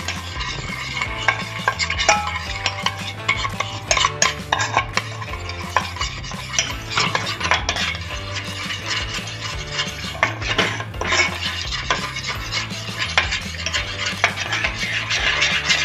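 A metal spoon stirring and scraping around a stainless-steel saucepan of honey-butter sauce, clicking against the pan's sides and bottom while the sugar cooks down into the melted butter.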